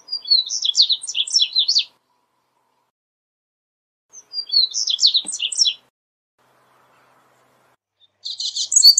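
Double-collared seedeater singing: two short phrases of quick, high twittering notes a few seconds apart, then a longer, denser phrase starting near the end.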